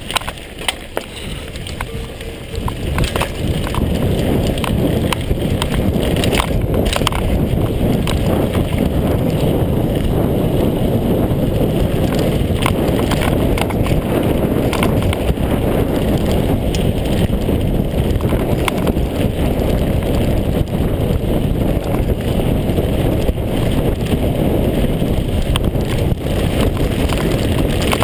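Wind buffeting the camera microphone and tyres rolling over loose gravel as a downhill mountain bike gathers speed on a stony track. Scattered clicks and rattles come from stones and the bike over the rough ground. The noise builds over the first few seconds and then stays steady.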